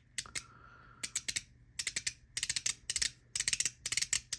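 Stainless-steel ACEDC Pico magnetic fidget being flicked back and forth, snapping shut with sharp metallic clicks in quick clusters of two to five.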